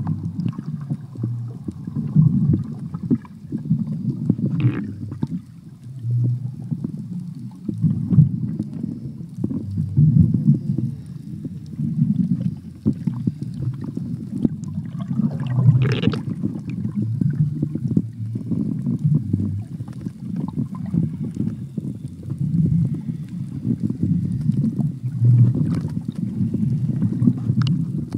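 Muffled, uneven low rumbling and gurgling of water heard with the microphone underwater, swelling and fading every second or so, with a few faint clicks.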